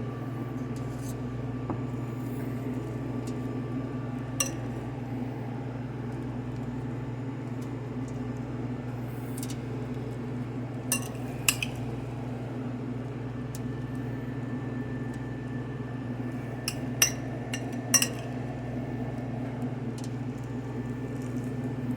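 A steady low hum with a few scattered sharp clinks of a utensil against a dish as toppings are spooned onto a sushi roll.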